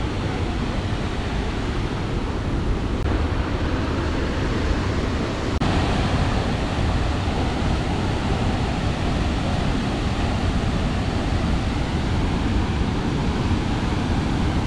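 Waterfall plunging into a rock pool, a steady rushing noise that gets a little louder and brighter about six seconds in.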